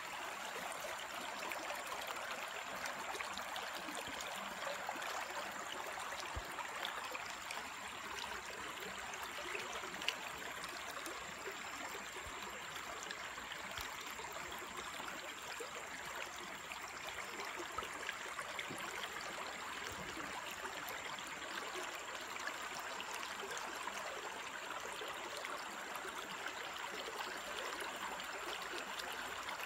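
Shallow, clear freshwater stream running over rocks and gravel: a steady rushing of water.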